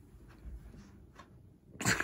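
A large Goldendoodle shifting about inside a fabric pet carrier, with faint rustles and one short, sharp burst of noise near the end.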